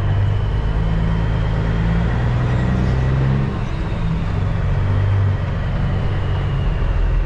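Caterpillar C15 diesel of a Peterbilt 379 semi running under light load at low speed, heard from inside the cab. Its note changes about three and a half seconds in and again a little after five seconds.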